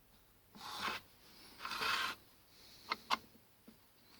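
Rear bearing housing with its bronze bushing sliding onto the dividing-head spindle, making two brief scraping slides, then two light metallic clicks as it seats. It goes on with no binding.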